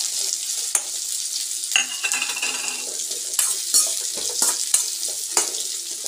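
Shallots, dried red chillies and coconut pieces frying in coconut oil in a steel kadai, with a steady sizzle. A steel spatula stirs them, scraping and knocking against the pan every second or so.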